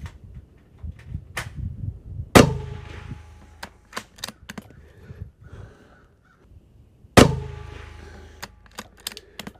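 Two rifle shots from a Marlin XT-22 bolt-action rimfire in .22 WMR, about five seconds apart. Each is a sharp crack with a short echoing tail, and lighter clicks and knocks fall between them.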